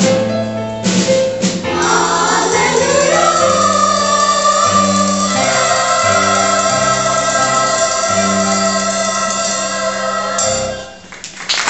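Choir with instrumental accompaniment singing the final bars of a gospel praise song, ending on a long held chord that stops about a second before the end.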